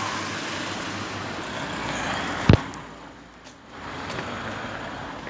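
Road traffic passing by, with one sharp, loud thump about two and a half seconds in.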